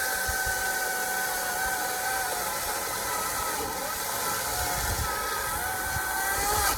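Ryobi chainsaw running at full speed through a big log, a steady high whine over the hiss of the chain cutting wood. Its pitch sags a little about two-thirds of the way in as the cut loads it, then recovers.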